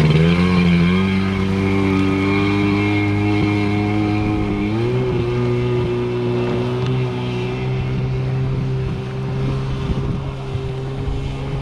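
Jet ski (personal watercraft) engine running steadily at low throttle, its engine speed shifting up about five seconds in.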